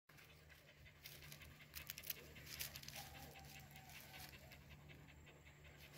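Faint panting of several young Vietnamese native hunting dogs, with scattered light rustles and ticks as they shift about in dry leaves and undergrowth.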